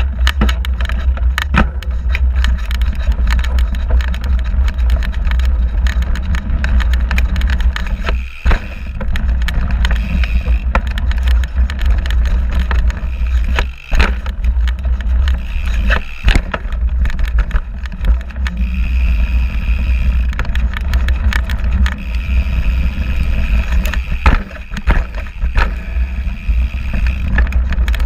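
Mountain bike riding a bumpy dirt trail, heard through a camera mounted low on its suspension fork. A heavy, steady low rumble runs throughout, with frequent sharp knocks and rattles from the bumps.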